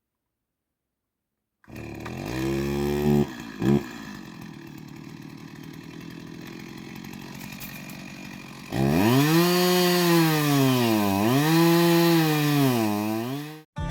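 Chainsaw starting a couple of seconds in and revving briefly, then idling for several seconds. It then runs at full throttle with its pitch sagging and recovering twice as it cuts through wood, and stops abruptly near the end.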